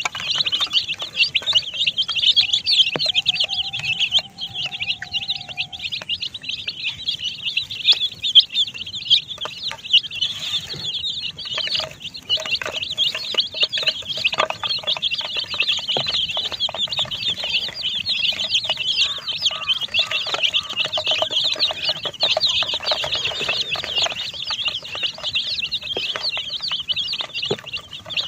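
A crowd of baby chicks peeping nonstop, many high, short cheeps overlapping at once.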